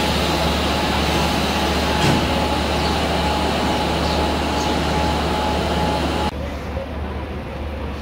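Electric locomotive standing at the platform, its machinery running with a steady low hum and a constant high whine. About six seconds in this cuts to a quieter, steady rumble aboard the train as it pulls out.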